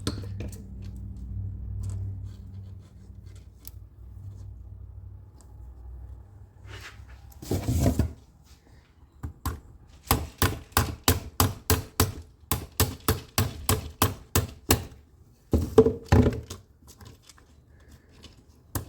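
Rapid series of sharp knocks, about four a second for around five seconds, followed by a couple of heavier thunks, from work on a '57 car's seized door latch mechanism.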